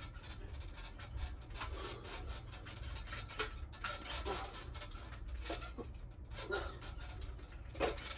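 A dip station rubbing, creaking and clicking while a person does weighted dips on it, with a louder sound about once a second as the reps go. A low steady hum runs underneath.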